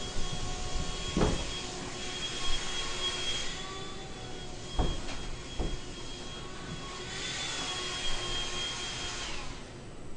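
A small motor running with a steady high whine and hiss, a few sharp knocks over it; the whine drops in pitch and stops near the end.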